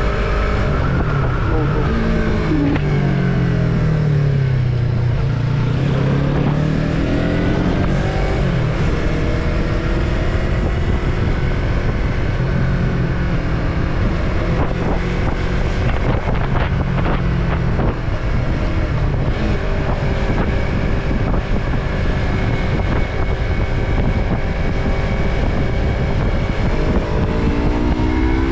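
Yamaha MT-03 motorcycle engine under way. Its pitch falls as the bike slows over the first few seconds, rises again, holds fairly steady while cruising, and climbs near the end as the rider accelerates, with steady wind noise on the microphone.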